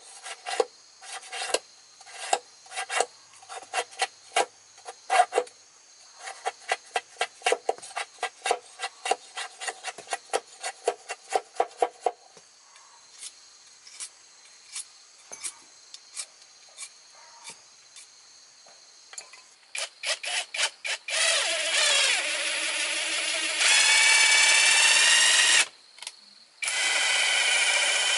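A machete blade scraping thin bamboo strips in quick strokes, about two or three a second, for roughly the first twelve seconds, followed by a few sparse light clicks. Near the end a cordless drill runs twice in steady bursts of a few seconds each, on a bamboo chair frame.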